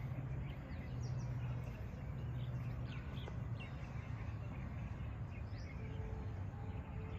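Birds chirping in short scattered calls over a steady low hum. A steady tone comes in near the end.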